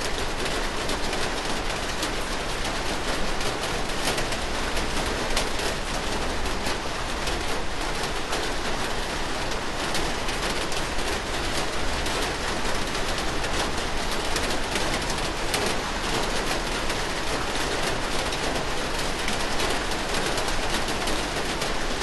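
Steady rain, an even hiss dense with the ticks of individual drops hitting surfaces close by.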